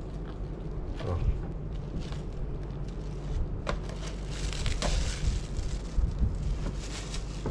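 Clear plastic wrap crinkling and rustling as it is pulled off a toy RC truck's body, louder in the second half, with a couple of sharp clicks.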